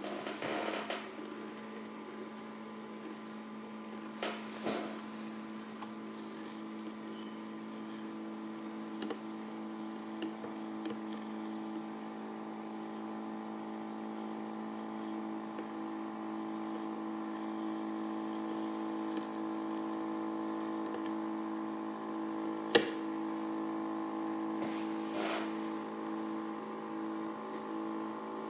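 Magnetic stirrer spinning a metal top on its plate: a steady hum of several tones that grows slightly louder, with a few knocks early on and one sharp click about 23 seconds in. Near the end one of the tones starts to pulse on and off.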